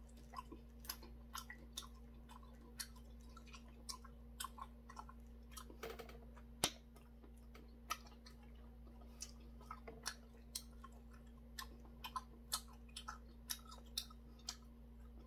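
A person chewing and smacking food close to the microphone, many short wet clicks scattered irregularly, with one sharper click about six and a half seconds in, over a steady low hum.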